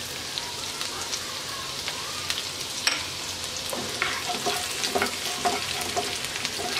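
Chopped ginger and garlic sizzling in hot oil in a non-stick wok: a steady hiss with scattered crackles. From about four seconds in, a wooden spoon stirs them, adding scraping and clicks against the pan.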